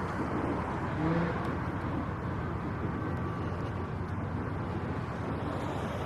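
Steady city street ambience, mainly the noise of road traffic.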